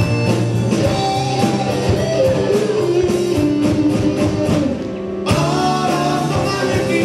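Live rock band playing with singing over guitars, bass, drums and keyboard. About five seconds in the band briefly thins out, then comes back in full.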